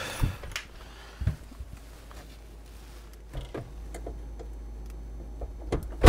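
Scattered light clicks and knocks of tools being handled, over a low steady hum.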